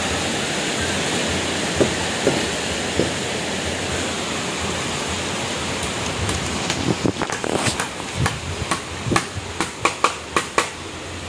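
Hammer blows on wood: a quick, irregular run of about a dozen sharp strikes in the second half, driving nails into timber roof framing, over a steady rushing noise.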